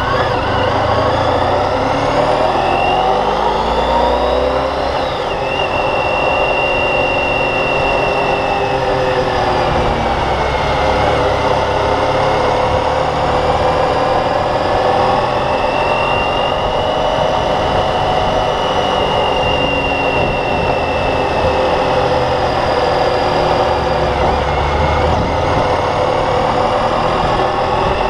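Motorcycle engine running while riding, its pitch climbing over the first few seconds and then rising and falling with the throttle, over a steady rush of wind and road noise.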